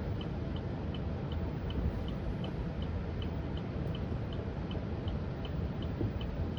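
Car turn-signal indicator ticking in the cabin, an even rhythm of nearly three ticks a second, signalling a right turn while the car waits at a red light. Under it is a steady low rumble of cabin noise.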